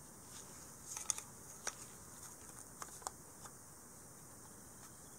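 Light clicks and taps of E-11 blaster replica kit parts knocking together as they are fitted by hand: a quick cluster about a second in, then a few single clicks near the middle.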